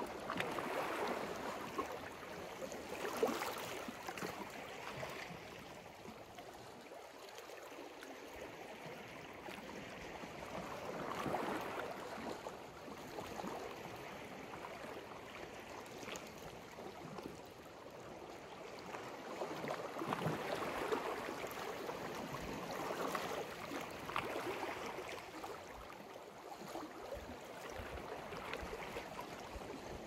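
Small sea waves washing onto the shore, the surf swelling and ebbing several times, with its sharpest peak about three seconds in.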